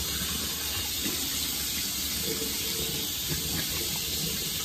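Tap water running steadily into a bathroom sink while a face is washed.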